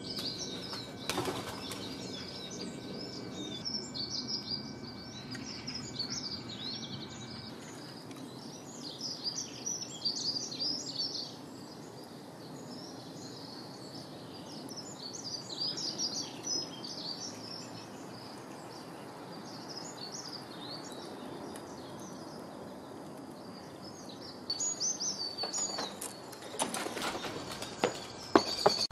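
Garden songbirds chirping and singing in many short, high calls, with a few short bursts of noise near the end.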